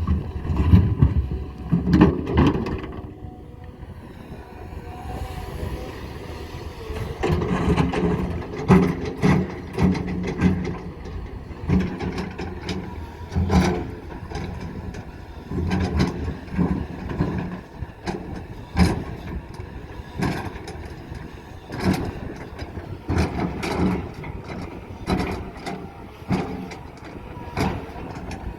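Cat 320 hydraulic excavator working: its diesel engine swells and eases over and over under hydraulic load, with repeated sharp knocks of rock against rock and bucket as stones are set on the slope. It eases off briefly a few seconds in, then picks up again.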